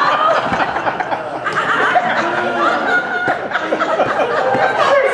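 A congregation laughing at a joke's punchline, many voices at once, with the preacher laughing along.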